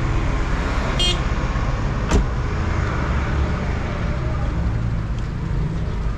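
Steady low rumble of motor vehicle traffic, with a short high squeak about a second in and a sharp click a second later.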